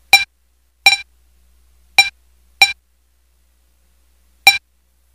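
A short, bright, pitched blip sound effect hits five times at uneven intervals, each one identical and cut off quickly, over a faint low hum.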